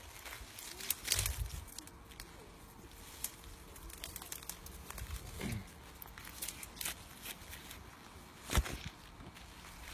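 Footsteps and handling in dry undergrowth: scattered rustles, crackles and snaps of twigs and dead brush, with a sharper knock about eight and a half seconds in.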